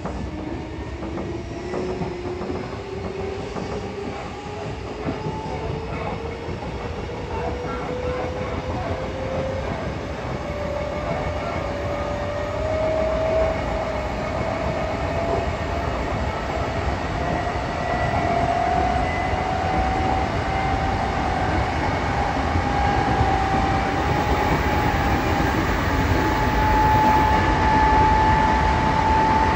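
Odakyu 8000 series field-chopper-controlled electric train heard from on board while accelerating. Its traction motor whine rises steadily in pitch and levels off near the end, over a low running rumble that grows louder with speed.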